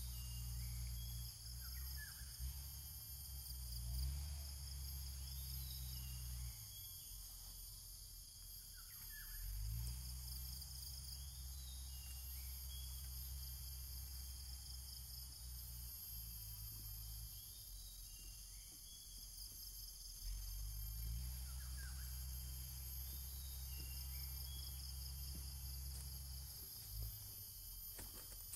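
Steady high-pitched insect chorus, with short bird chirps now and then and a low rumble underneath.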